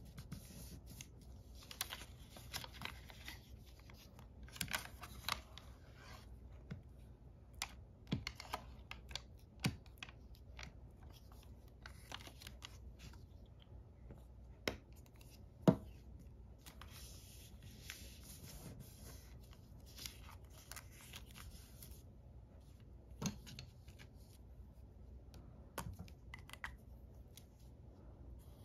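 Quiet handling of origami paper being folded, pressed and glued with a glue stick: soft paper rubbing and scraping with scattered sharp taps and clicks, the loudest a little past halfway. A pen starts drawing on the paper near the end.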